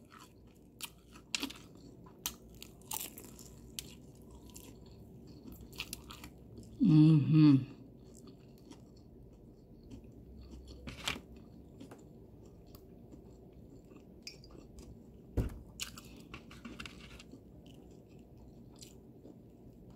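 Close-up chewing of crispy Popeyes fried chicken: scattered crunches and wet mouth clicks, with a short voiced sound from the eater about seven seconds in.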